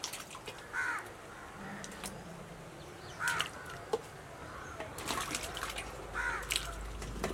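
Crows cawing about three times, and chunks of raw jackfruit splashing into a pot of water, with a run of splashes near the end as the bowl is tipped in.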